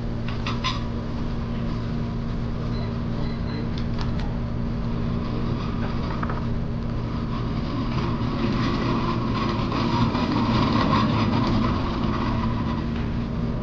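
Steady mechanical hum with constant low tones, with a few light clicks of chopsticks against a bowl near the start and about four seconds in, and a swell of louder noise from about eight to twelve seconds in.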